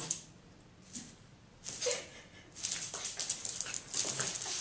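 Two small dogs playing tug-of-war over a leash on a hard floor: scuffling and scrabbling in short bursts, turning busier and more continuous in the second half.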